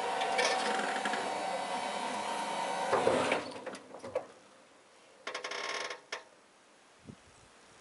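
Electric hydraulic pump of an electric tractor's front loader whining steadily as it drives the loader cylinders, then cutting off about three seconds in. After it stops come a knock, a brief rushing sound and a click as the bucket comes down.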